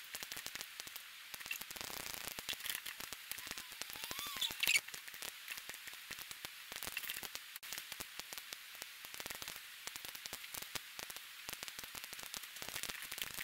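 Steady crackling static made of dense fine clicks, with a faint short whistle that rises and falls about four seconds in and a louder burst of crackle just after it.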